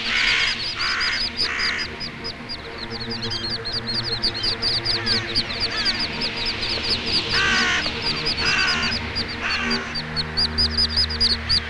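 Merganser ducklings peeping in a fast, unbroken stream of short high notes, while a hooded crow gives harsh caws in two groups of three, one at the start and one about two-thirds through. Soft music with low held tones runs underneath.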